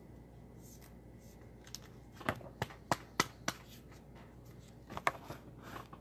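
Sharp clicks from handling a trading card in a clear plastic holder: a quick run of about five in just over a second, then two more about a second and a half later.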